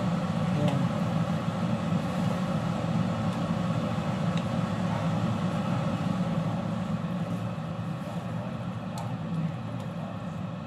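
Steady low hum and rush from the stove while dried noodles boil in a wok of water, with a few faint clicks of wooden chopsticks stirring them.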